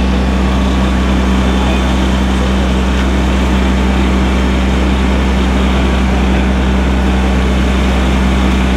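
Fire truck engine running at a steady speed, a loud, constant low drone with an unchanging hum.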